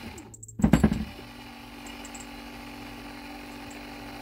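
12 V windscreen wiper motor from an old Mitsubishi Colt starting with a brief clatter about a second in, then running with a steady electric hum and no load on it.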